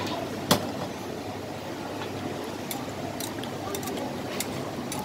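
Steady background hiss with a sharp metal clink about half a second in and a few lighter clinks later: steel tongs and a wire noodle strainer knocking against a stainless stockpot of hot water.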